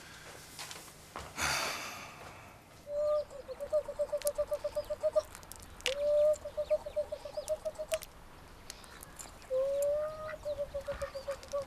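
Domestic fowl, most likely a chicken, calling in three runs of rapid clucking notes, each run opening with a longer note. A short rushing noise comes before them, about a second and a half in.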